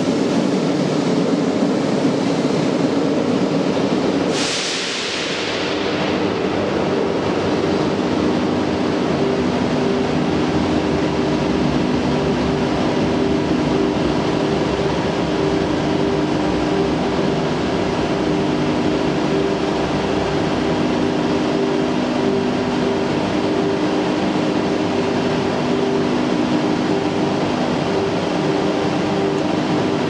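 RENFE class 446/447 electric commuter trains moving through the station: a steady electrical hum with several held tones over a rumble of running gear, and a short burst of hiss about four seconds in.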